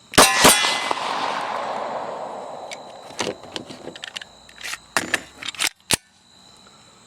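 Glock 23 pistol in .40 S&W firing at steel targets: two quick shots right at the start with a long ringing decay, then a ragged string of further shots and hits about three seconds in, ending just before six seconds.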